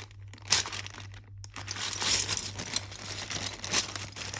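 Plastic packaging crinkling and rustling as it is handled, with a sharp click about half a second in and a brief pause before the rustling resumes.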